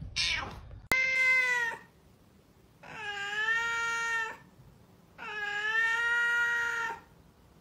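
Domestic cat meowing three times, each meow long and drawn out, the last one the longest.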